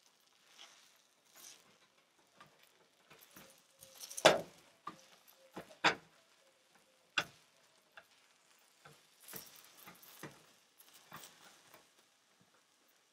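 A slotted spatula scraping and tapping against a ceramic-coated frying pan as an omelette is rolled up, with scattered scrapes and a few sharp knocks, the loudest about four, six and seven seconds in.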